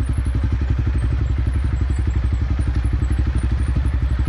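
Motorcycle engine running steadily at low revs, with an even, fast beat of firing pulses.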